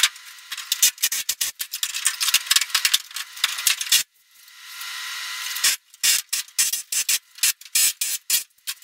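Pneumatic air hammer chiseling at a rusted sheet-metal rocker panel: rapid, irregular metallic rattling in bursts, broken about four seconds in by a swelling hiss before the rattling resumes.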